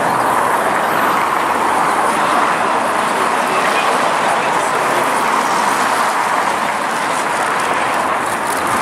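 Steady, loud street noise with no distinct events.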